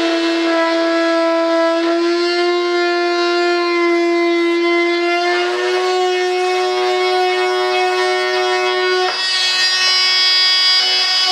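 High-speed rotary tool whining steadily while cutting through carbon-fibre composite. Its pitch rises a little twice, then drops suddenly near the end with a burst of grinding hiss as the cut bites.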